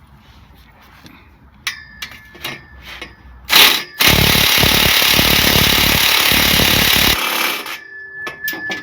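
Milwaukee cordless impact wrench hammering on a rusted exhaust bolt. A few tool knocks and a short burst come first, then about three seconds of continuous rapid hammering that stops abruptly.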